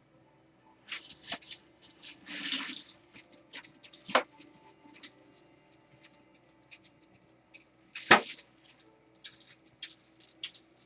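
Hands and sculpting tools working oil-based clay on an armature: scattered clicks, scrapes and handling noises, with a sharp knock about four seconds in and the loudest knock about eight seconds in.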